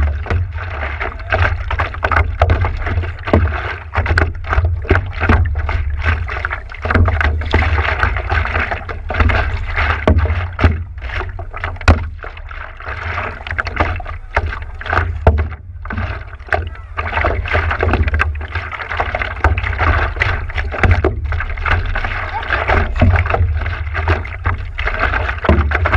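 Sea water sloshing and splashing against a stand-up paddleboard with irregular splashes from the paddle strokes, over a constant deep rumble.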